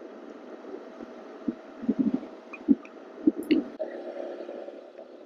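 Muffled rumble and a few soft, irregular thumps of wind buffeting and rubbing on a clip-on wireless microphone on a moving motorcycle rider. A steady low hum starts suddenly about four seconds in.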